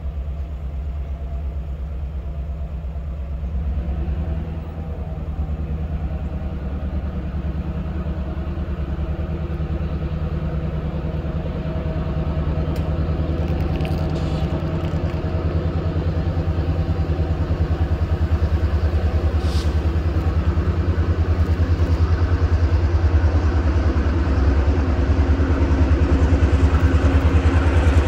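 Train locomotive's engine rumbling steadily, growing gradually louder as the train approaches.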